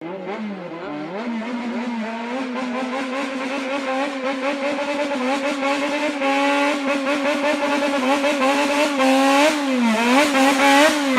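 Yamaha XJR400's air-cooled inline-four motorcycle engine revved in a Japanese 'call', the throttle worked rhythmically to play a waltz-style pattern. The revs climb early on, hold high with quick wavering, and drop sharply and rise again twice near the end, getting louder overall.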